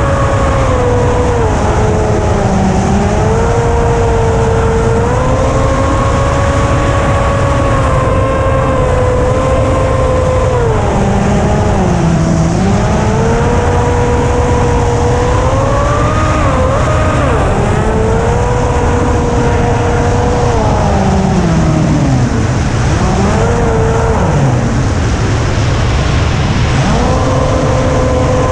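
Electric motor and propeller of a Flinch FPV flying wing whining steadily, its pitch rising and falling with throttle and dipping sharply several times, over heavy wind rumble on the onboard camera.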